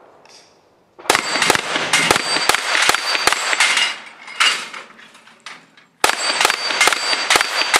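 FN PS90 firing 5.7×28 mm rounds in fast semi-automatic strings, about three to four shots a second. One string starts about a second in, a few scattered shots follow, and another string starts about six seconds in, with the steel plates of the target rack ringing as they are hit.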